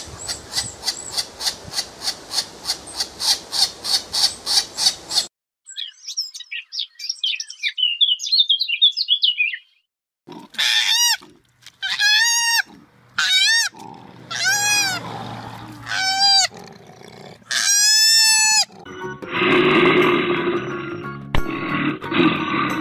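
A run of different animal sounds in turn. First comes about five seconds of fast, even chirping, about four a second, then a flurry of high bird chirps. After that comes a series of separate calls that rise and fall in pitch, and last a rougher grunting sound.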